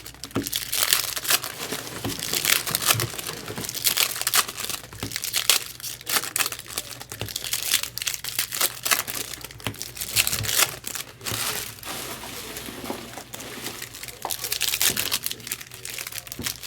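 Foil wrappers of trading-card packs crinkling and tearing as the packs are ripped open and handled, with a dense, irregular crackle throughout.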